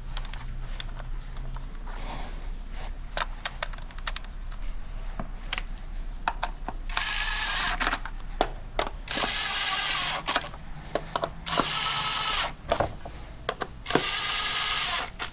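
A power tool runs in four short bursts of about a second each in the second half, driving bolts back in on the engine. Scattered sharp clicks and clinks of tools and metal parts come before them.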